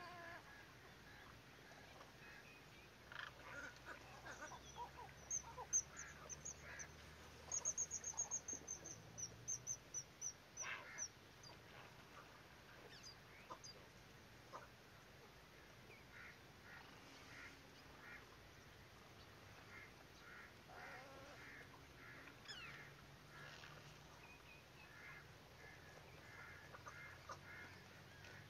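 Faint wild bird calls: scattered short calls throughout, and a high, rapid run of falling notes heard twice a few seconds in.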